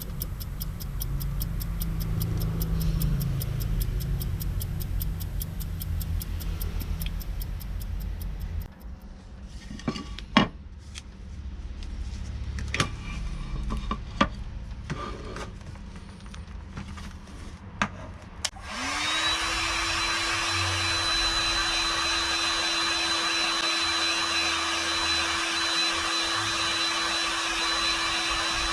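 A small DC electric motor, the 775 motor of a homemade PVC saw, spins up quickly about two-thirds of the way in and then runs steadily at full speed with a high whine. Before it, a low rumble with rapid even ticking, then a few sharp clicks and knocks.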